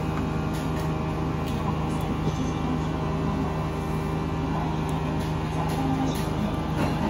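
Steady low mechanical hum of restaurant equipment, with a few faint light clicks.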